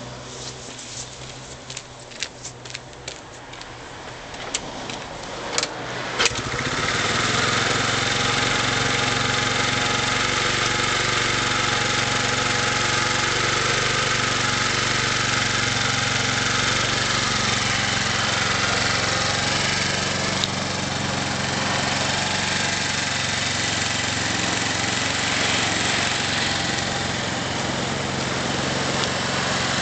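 The engine of a BTL125 being started: a run of sharp clicks and ticks for about six seconds, then the engine catches and settles into a steady idle.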